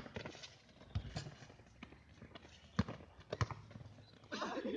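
A basketball thudding on an outdoor concrete court a few times at uneven intervals as the players run, with a short burst of noise near the end.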